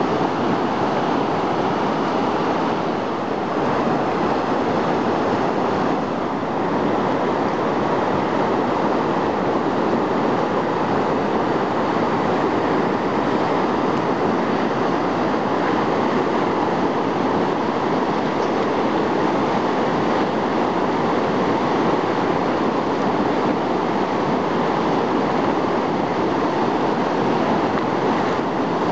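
Whitewater rapid rushing steadily, an even noise that does not break or change.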